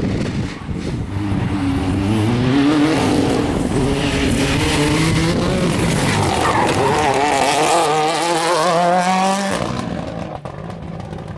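Mini Countryman rally car accelerating hard past at close range. Its engine note climbs through several gear changes, rises steeply in the last stretch, and falls away suddenly about nine and a half seconds in.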